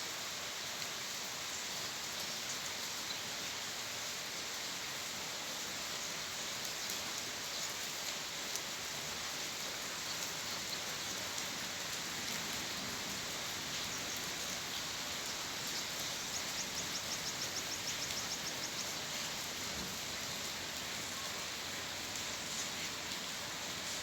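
Steady rain without thunder: an even hiss of falling rain with scattered drop ticks. A rapid run of small ticks, about five a second, comes in for a few seconds past the middle.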